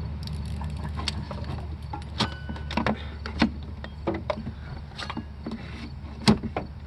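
Scattered clicks, clinks and knocks of hand tools and parts being worked loose in a truck's engine bay, with one louder knock near the end, over a steady low hum.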